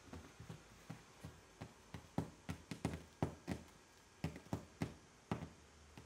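A cat's claws plucking at carpet: a quick, irregular string of sharp snaps as the claws catch in the fibres and pull free, crowding together in the middle.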